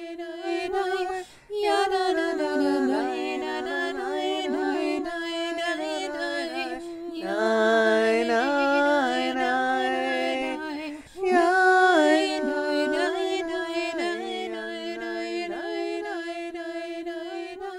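Women singing a chant setting of a psalm verse, the melody moving over a steady held low note. The singing breaks off briefly about a second in and again about eleven seconds in.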